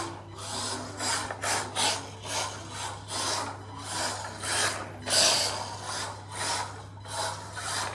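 Repeated scraping strokes, about two a second, with a steady low hum beneath.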